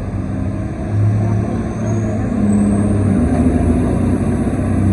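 Diesel semi-truck engine running hard, its exhaust stacks smoking, getting louder about a second in, with a faint high whine rising in pitch over the middle.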